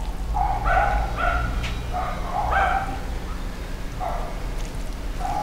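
A small dog yapping: about eight short, high barks at irregular spacing, over a low steady hum.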